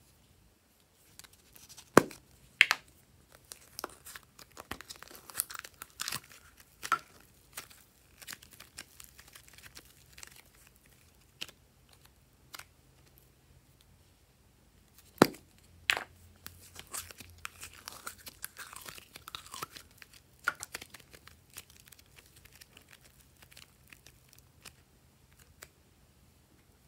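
Two loud sharp plastic snaps, about two seconds in and again about halfway through, as the lids of plastic slime cups are opened. Each is followed by scattered soft tearing and crackling as thick slime is pulled out and handled.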